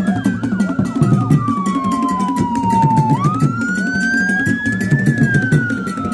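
A siren wail sound effect over intro music with a heavy, choppy beat. The siren tone falls slowly, climbs again about three seconds in, then starts to fall near the end.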